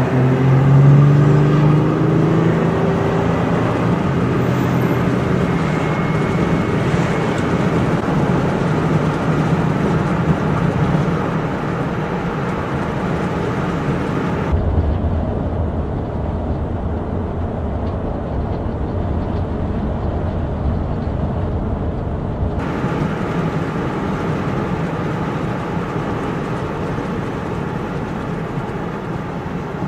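Ford Bronco Warthog prototype driving on the road, its engine and exhaust rising in pitch as it accelerates over the first few seconds, then running steadily with tyre and road noise. For about eight seconds in the middle the sound turns muffled and low-pitched, as heard from inside the following car.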